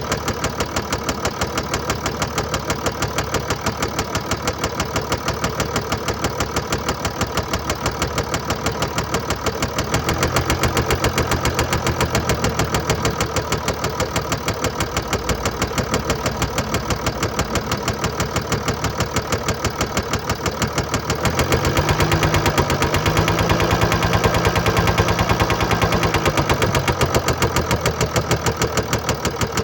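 Mercedes-Benz E350 4Matic's 3.0-litre diesel engine idling with a rapid, even knocking, raised in speed briefly about ten seconds in and again, higher and for several seconds, a little past twenty seconds before dropping back to idle. The seller takes the noise for bearing damage and a defective injector.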